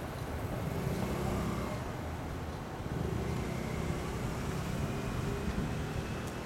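A vehicle running past: a steady low rumble that swells slightly about a second in and again around three seconds in.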